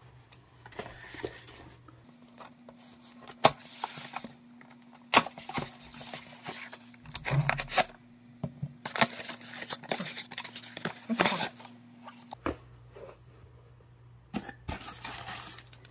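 A parcel being opened and its packaging handled: irregular clicks and knocks with short stretches of tearing and rustling plastic or cardboard, and a faint steady hum under most of it.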